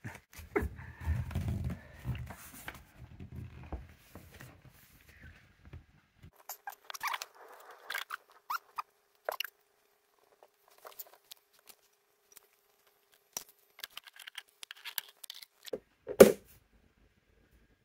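Handling noise around a clear plastic beetle-keeping container: scraping, rustling and scattered sharp clicks, with one loud thump near the end.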